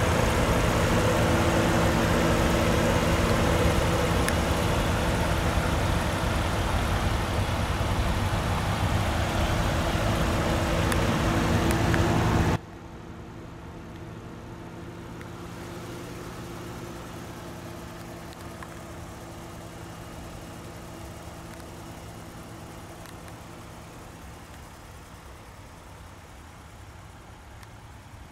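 Lexus RX350's 3.5-litre V6 idling steadily, a constant even hum. About halfway through the level drops suddenly and the hiss falls away, leaving a quieter, steady idle.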